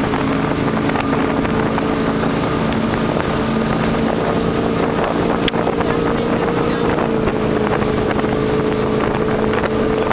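Motorboat engine running steadily at towing speed, its note dipping slightly about seven seconds in, with wind buffeting the microphone and the wake churning behind the boat.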